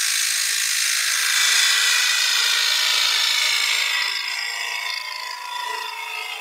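A bowl gouge cutting across the inside bottom of a spinning ash bowl on a woodturning lathe: a steady, hissing cut with shavings coming off. The cut gets quieter about four seconds in.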